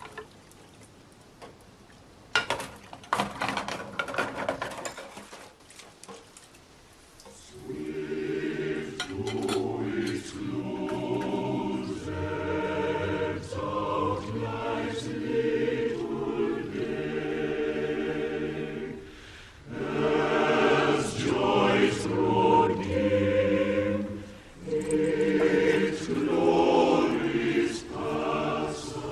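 Choir singing in sustained chords, coming in about seven seconds in after a quiet stretch broken by a few sharp clicks.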